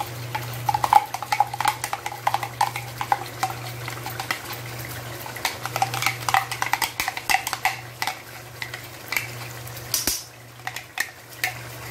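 Metal spoon scraping and tapping inside a plastic grinder jar to push out a thick paste, a run of sharp clicks and scrapes with one louder scrape near the end, over a low sizzle of masala frying in the pan.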